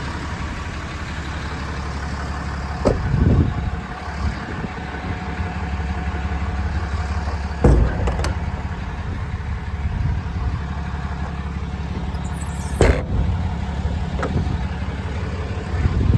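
Diesel engine of a Sterling Bullet (Ram 5500) truck idling with a steady low hum, with a few short sharp knocks over it.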